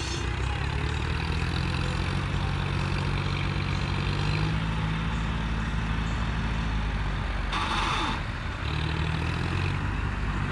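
John Deere 5050D tractor's three-cylinder diesel engine running under load as it drags a rear krawa scraper blade through loose sand, with a brief rushing hiss about three-quarters of the way through.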